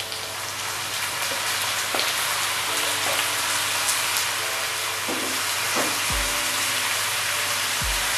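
Squid frying in hot oil in a wok with onions, ginger and garlic: a steady, loud sizzle, with a few short knocks.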